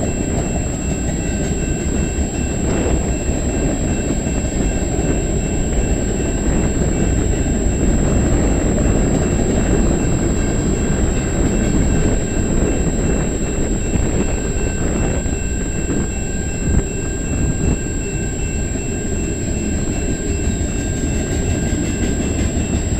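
Freight train cars (tank cars, covered hoppers and boxcars) rolling past at steady speed: a continuous rumble of steel wheels on rail, with an occasional louder clank.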